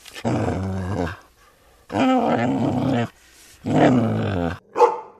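Dog growling: three drawn-out low growls of about a second each, then a short one near the end.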